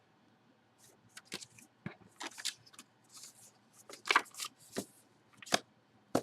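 Packaging being handled: a string of short, irregular crinkles and clicks.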